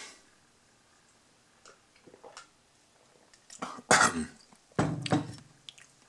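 A person drinking from a glass beer mug with small quiet sounds of sipping, then two short coughs about four and five seconds in, after a taste of a very sweet beer mix.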